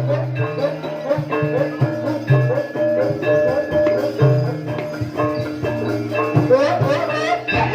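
Music for a barong dance: tuned mallet percussion plays a busy repeating melody of short struck notes over a recurring low held note.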